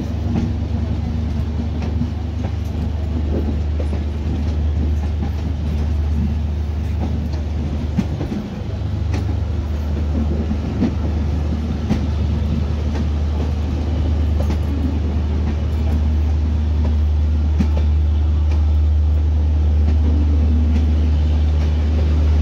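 Bangladesh Railway passenger coaches rolling slowly past at close range, their wheels clicking over rail joints now and then over a steady low hum.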